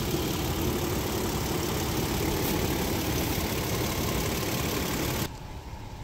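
A 2012 Toyota Tacoma's engine idling steadily, heard from the front of the truck. About five seconds in the sound drops away suddenly to a much quieter background.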